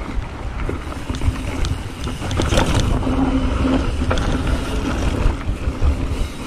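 Mountain bike being ridden on a sandy forest trail: wind rumbling on the action camera's microphone over the rolling tyres, with scattered knocks and rattles as the bike goes over bumps.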